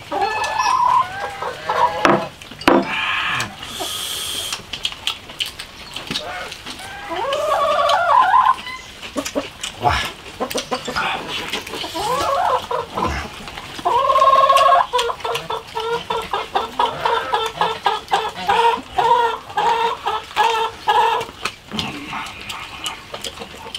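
Chickens clucking and cackling, with a loud call about two-thirds of the way in and then a quick run of short clucks. Slurping and gnawing sounds of eating are mixed in.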